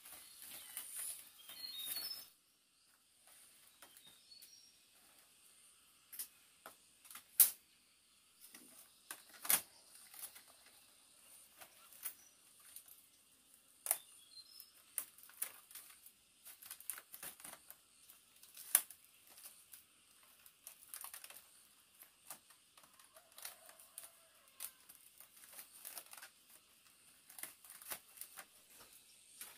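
Irregular sharp clicks and taps, one every second or so, with small birds chirping in the first few seconds.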